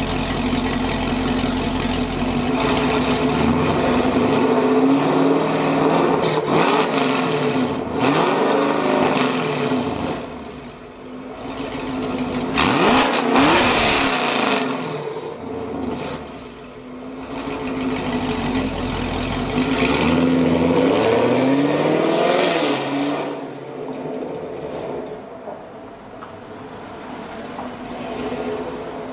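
2021 Camaro SS 1LE's V8 through catless long-tube headers, an X-pipe and factory dual-mode mufflers with the valves open, idling and revved several times. The highest rev, about halfway through, reaches about 4,500 rpm. The car then pulls away at moderate throttle and the sound fades.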